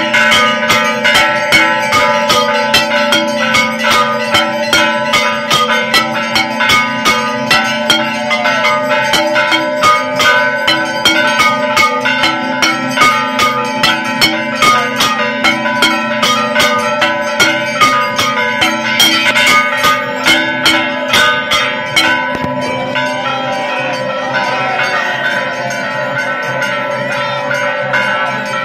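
Temple bells ringing during a Hindu aarti, struck rapidly and evenly at about two to three strokes a second, with several bell tones sounding together. The strokes stop about 22 seconds in, leaving softer ringing.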